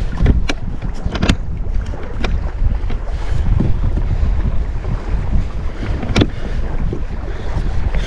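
Wind buffeting the microphone in a low, fluctuating rumble while out on the water in a kayak, with a handful of sharp knocks and splashes, the loudest about six seconds in.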